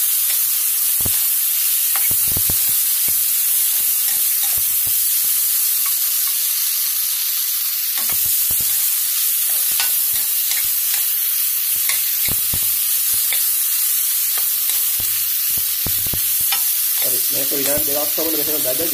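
Onions, tomatoes and spices frying in hot oil in a non-stick wok, sizzling steadily, with irregular knocks and scrapes of a spatula stirring them.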